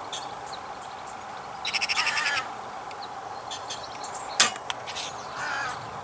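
A magpie's harsh rattling chatter about two seconds in. Then a single sharp crack of an air rifle shot, the loudest sound, with a fainter knock just after it, and a short harsh call a second later.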